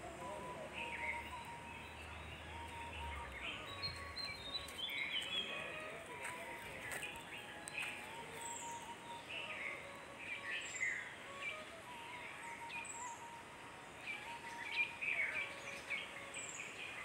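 Wild birds chirping, with short, irregular chirps and, every few seconds, a thin, high falling note.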